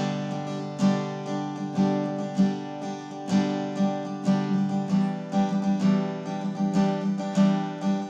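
Background music: acoustic guitar, plucked and strummed in a regular rhythm.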